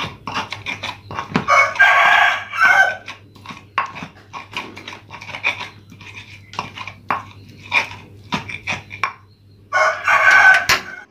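A rooster crows twice, about two seconds in and again near the end, over repeated short knocks of a pestle grinding spice paste in a mortar.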